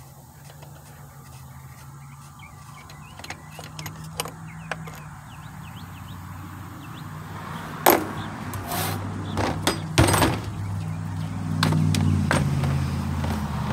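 Clicks and several sharp knocks of metal tools and a compression-gauge fitting being handled against a chainsaw during a compression test. The loudest knocks come in the second half, over a low engine-like hum that grows louder toward the end.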